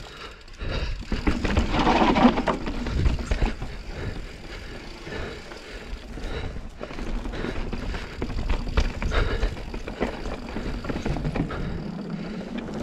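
Mountain bike descending a dirt trail: tyres rolling over dirt with a steady rumble, broken by irregular clicks and rattles from the chain and frame over bumps.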